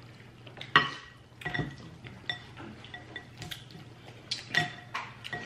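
Crab legs being cracked and snapped apart by hand: irregular sharp cracks and clicks of shell, the loudest about a second in, with shell and utensils clinking against a glass bowl.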